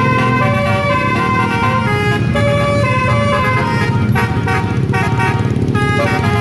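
Indonesian bus 'telolet' multi-tone horn playing a tune of quickly changing notes, several sounding at once, over a steady low rumble.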